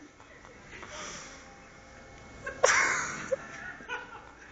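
A man retching: one loud, sudden heave about two and a half seconds in that tails off within a second, after fainter breathy sounds, and a smaller heave near the end.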